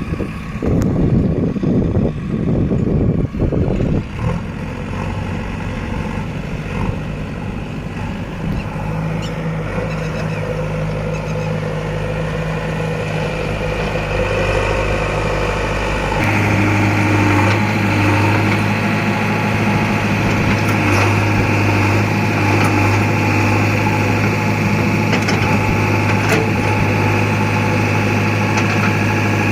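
JCB 3DX backhoe loader's diesel engine running under work, rough for the first few seconds, then settling into a louder, steady drone about halfway through as the revs step up.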